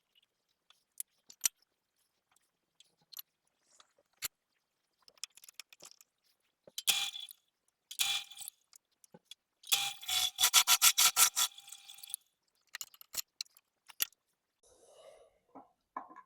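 Hand work on bolts and wooden legs of a lathe stand: scattered clicks, knocks and scrapes, with a quick run of about a dozen rapid clicks a little past the middle.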